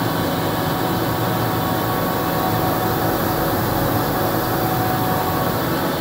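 Solna Distributor web offset printing press running with the paper web feeding through its units: a loud, steady mechanical drone with a few held tones.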